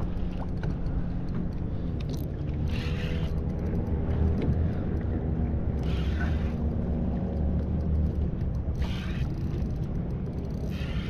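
Spinning reel being cranked steadily, its gears whirring, as a hooked fish is reeled in. Brief hisses come every two to three seconds.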